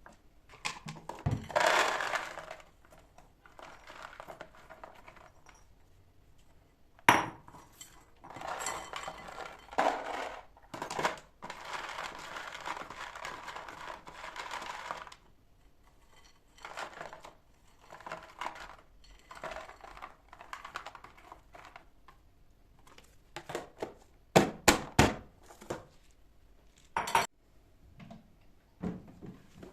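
Dishes and cutlery clinking and clattering as they are handled, with a few sharp knocks, and a few seconds of steady hiss in the middle.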